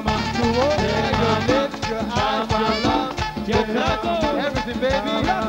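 Live merengue band playing a fast dance beat, with steady, evenly spaced drum hits under a gliding melodic line.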